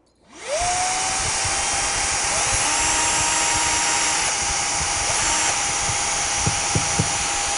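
Cordless stick vacuum switched on about half a second in and running steadily with a steady whine, held at the wall to catch dust while a cordless drill bores a small pilot hole into drywall, checking for a stud behind it.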